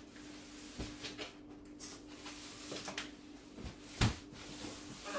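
Cardboard box and plastic wrap being handled as a heavy boxed statue is lifted out of its shipping box: rustling and scraping with scattered knocks, the loudest a sharp knock about four seconds in.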